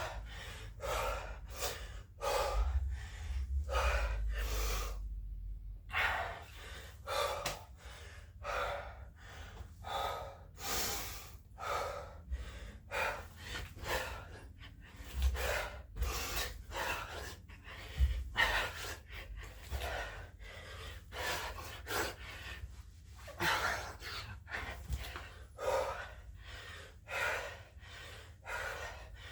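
A man breathing hard and fast from the exertion of burpees, quick breaths in and out in a steady rhythm of about three every two seconds.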